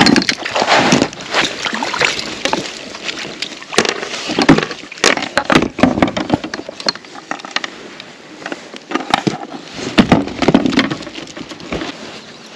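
Water splashing and sloshing as a hooked trout is netted beside a kayak, with repeated sharp knocks and clatters of the landing net and rod against the boat.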